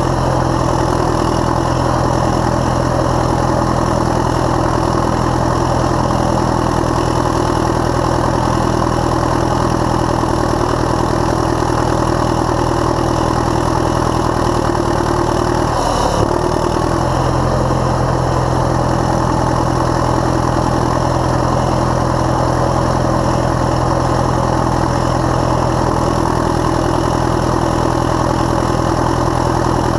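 1968 Caterpillar D7E bulldozer's diesel engine running steadily, heard close to its exhaust stack, with a brief break in the sound about halfway through.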